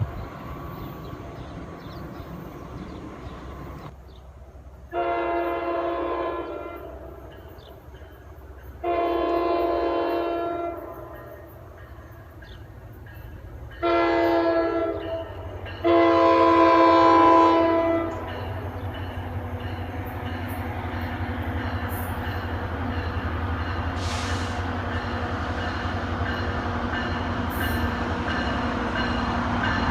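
Diesel-electric locomotive horn sounding four blasts: long, long, short, then long, the pattern of the standard grade-crossing signal. After the last blast the approaching train's running sound grows steadily louder.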